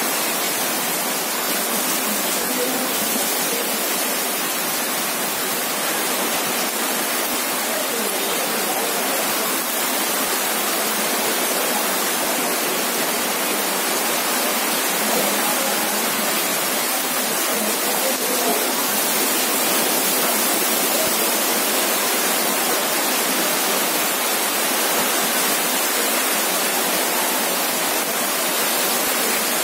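Heavy rain falling steadily, an even, dense hiss of drops on wet pavement and standing water.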